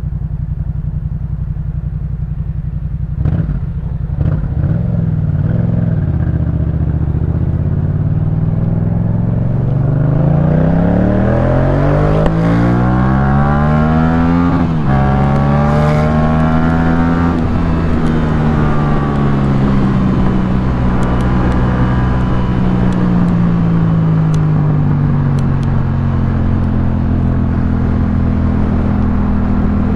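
Yamaha MT-07's parallel-twin engine breathing through a Jeskap K4 full aftermarket exhaust, under way. It runs steadily at first, with a sharp click about three seconds in. The pitch then rises as the bike accelerates and drops suddenly at a gear shift halfway through. It climbs briefly again, then falls away as the throttle closes and settles back to a steady run.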